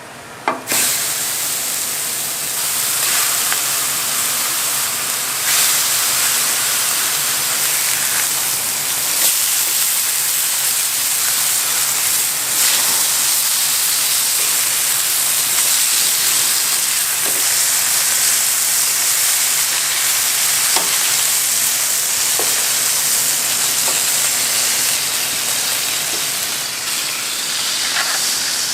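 Steady sizzling of food frying in a hot pan, with scattered pops and crackles. It cuts in abruptly just after the start.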